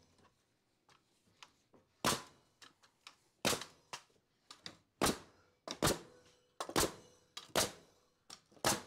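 Framing nailer driving nails into the bottom of wooden wall studs: seven sharp shots about a second apart, starting about two seconds in, with fainter knocks between.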